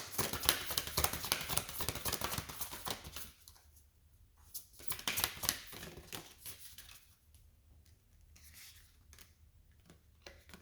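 Oracle cards being shuffled: a fast run of flicking and rustling card sounds for about three seconds, then a few softer card clicks and light handling.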